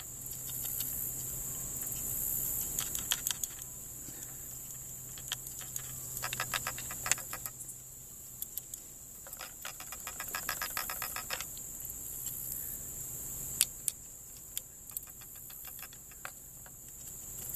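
Quick runs of small metallic clicks and rattles from a flintlock rifle's lock as the gun is shaken and a touch-hole pick is worked in the touch hole, feeding powder down behind a ball loaded without powder. A steady high insect drone sounds behind.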